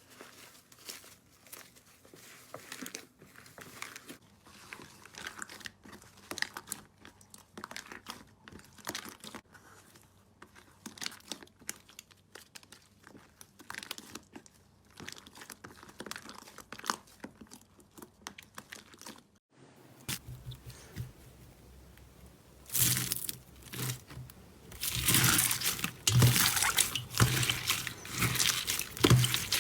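Crunchy slime being pressed and squeezed, making a run of small crackles and crunches. About two-thirds of the way through there is a sudden break, then much louder, denser crunching.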